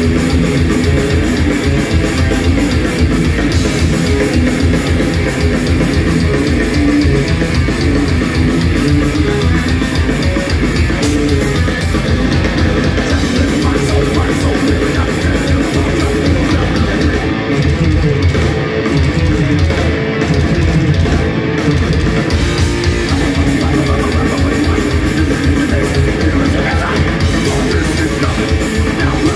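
Metal band playing live without vocals: distorted electric guitars, bass guitar and fast, dense drumming, loud.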